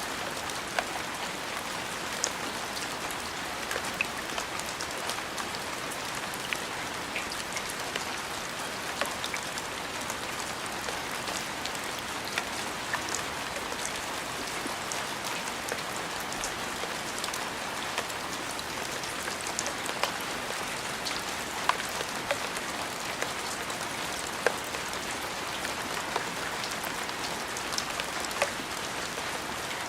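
Steady rain falling on a surface, an even hiss dotted with many sharp individual drop impacts.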